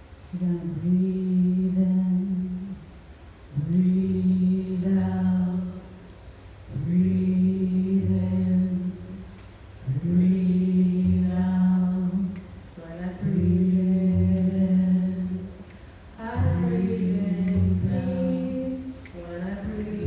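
Chanting: a long vowel held on one steady pitch, about three seconds at a time, repeated six times with short pauses for breath between.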